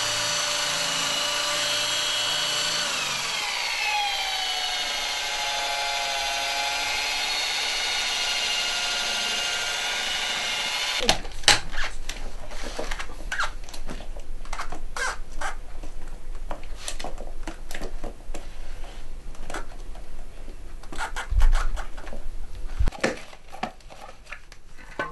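Electric drill spinning a mixing paddle through silicone and hardener in a bucket. Its whine drops in pitch about three seconds in, runs steadily lower, and stops about eleven seconds in. After that comes irregular scraping and knocking as the silicone is stirred by hand with a stick.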